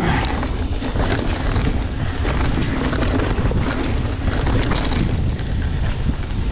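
Mountain bike riding down a rough dirt and rock trail: wind buffeting the microphone over the steady rumble of the tyres, with frequent sharp rattles and clicks from the bike jolting over the ground.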